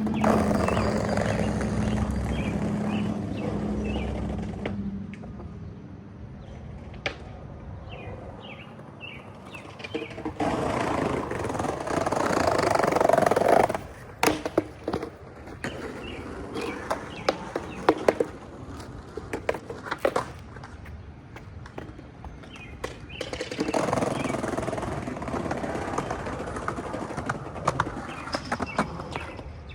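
Skateboard wheels rolling over pavement in three passes of a few seconds each, with sharp clacks of the board hitting the ground in between. Birds chirp faintly in the quieter gaps.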